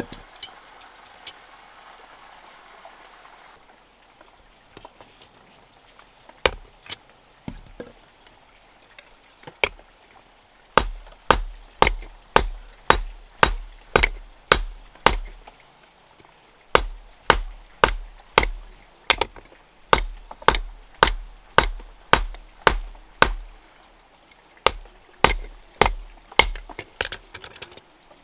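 Hand hammer strikes in steady runs of about two blows a second, each a sharp knock with a low thud and a short ring, pausing briefly twice. A soft rushing noise is heard at the start, then a few scattered single blows.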